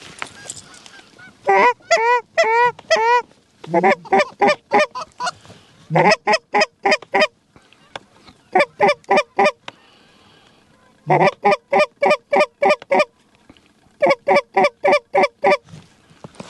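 Canada goose calls blown hard and close in quick runs of clucks and honks, about seven runs of four to seven notes each with short pauses between, calling to geese flying toward the decoy spread.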